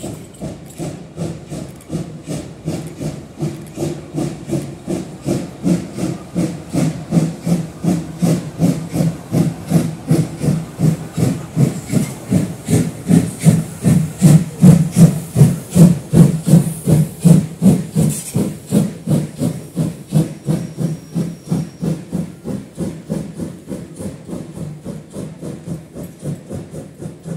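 Steam locomotive of Deutsche Reichsbahn class 35 chuffing past under steam: a steady rhythm of exhaust beats, about three a second, grows louder as it comes near, is loudest midway, then fades as it moves away.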